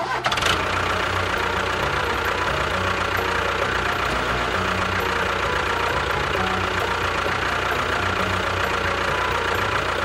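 Steady engine-like running of a miniature model tractor as it drives over sand: a constant noisy whir over a low rumble, cutting in suddenly at the start.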